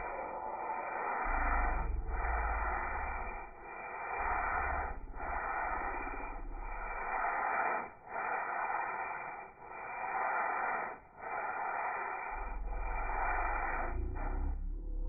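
Sandpaper rubbed by hand over a wooden jewelry box's first coat of urethane, in long rasping strokes with brief breaks about every second and a half. This is the between-coats sanding that scuffs the cured urethane before the next coat.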